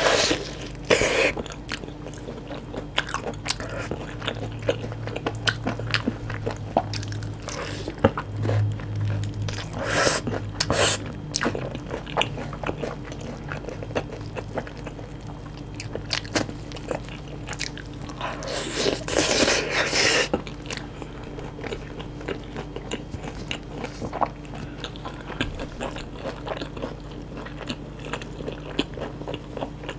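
Close-miked biting and chewing of sauce-coated Korean fried chicken (yangnyeom chicken): many small crunches and mouth clicks, with louder crunching bites about a second in, around ten seconds in, and again near twenty seconds. A faint steady hum runs underneath.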